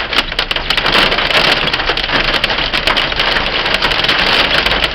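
Heavy rain and hail pelting down in a loud, steady downpour, with a dense clatter of sharp hailstone impacts.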